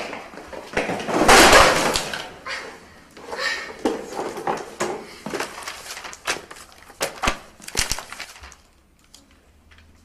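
Papers and notebooks spilling onto a hard floor: a loud rushing clatter about a second in, then a run of knocks and paper rustles as they are gathered up, which stop shortly before the end.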